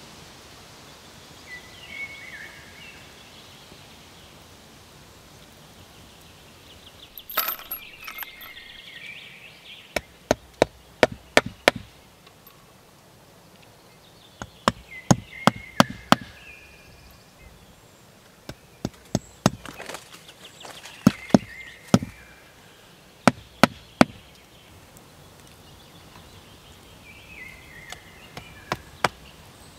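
Hatchet striking a cedar plank under a salmon fillet: sharp wooden knocks in quick bursts of several blows, starting about a quarter of the way in.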